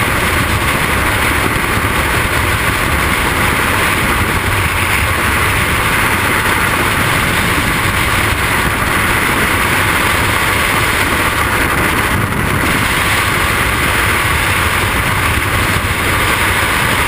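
Skydiving freefall wind rushing over the camera's microphone: a loud, steady wind noise with no break.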